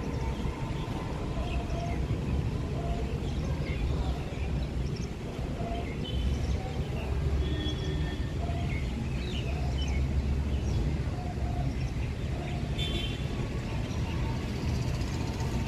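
Steady low rumble of a train running on the track, with birds chirping over it.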